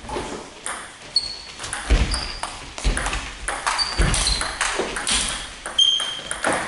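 Table tennis rally: the ball clicking sharply off bats and table many times in quick alternation, with short high shoe squeaks on the hall floor and a few low thuds about two, three and four seconds in.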